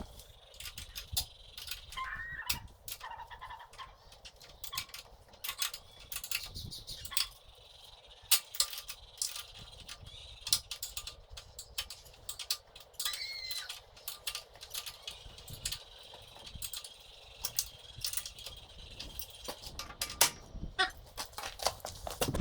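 Irregular clinks, rattles and knocks of metal parts and tools being handled during metal fabrication work.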